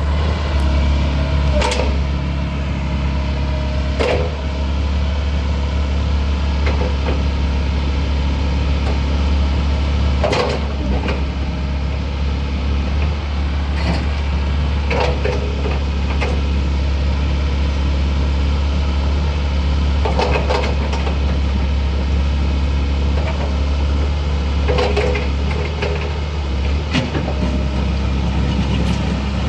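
Komatsu PC130 excavator's diesel engine running steadily, with a few short, sharp metallic clanks at intervals.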